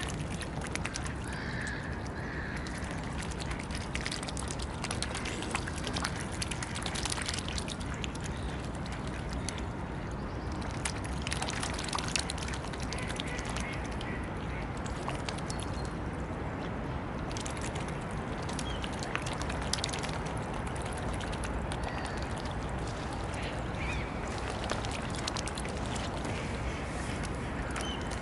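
Mute swans feeding on floating pellets at the water surface: many small wet clicks and splashes from their bills, with a few short mallard quacks.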